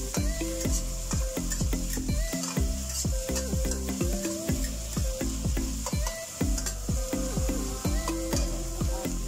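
Diced red onions sizzling in hot oil in a stainless steel wok, stirred with a spatula that clicks and scrapes against the pan, over background music with a steady beat.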